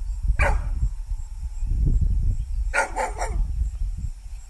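A dog barking back at its owner's call to leave: one bark about half a second in, then a quick run of barks near three seconds in.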